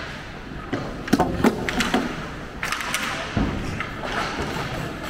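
Ice hockey play: a cluster of sharp stick-and-puck clacks a little over a second in, skate scrapes on the ice, and dull thuds against the boards.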